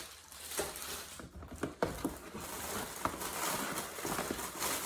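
Packaging and unboxed items being handled: rustling with scattered light taps and knocks.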